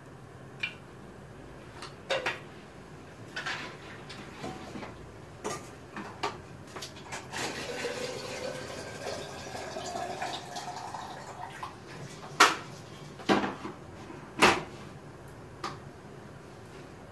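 Scattered clinks and knocks of metal kitchen utensils against a stainless-steel cooking pot, with three sharper knocks a little past the middle.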